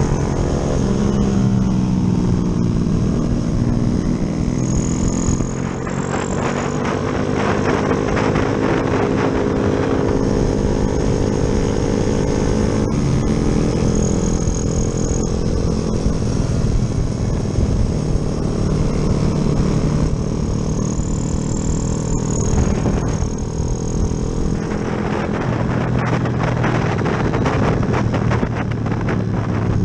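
A Yamaha Jupiter MX's single-cylinder four-stroke engine, big-bored with a 72 mm piston, running under way while ridden. The revs rise and fall repeatedly as the rider works the throttle and gears, with stretches of louder rushing noise as it pulls hard.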